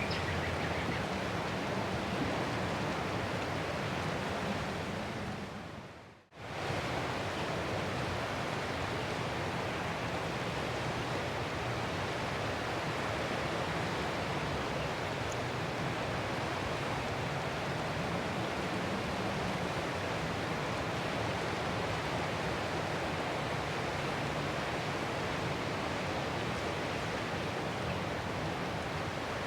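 Ocean surf washing steadily as a continuous rushing hiss. It fades over a couple of seconds to near silence about six seconds in, then comes straight back at full level.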